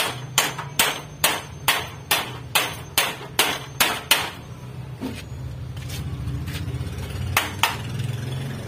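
Claw hammer striking the wooden frame of a cage, about eleven quick, evenly paced blows in the first four seconds. After a pause, two more knocks follow a little before the end.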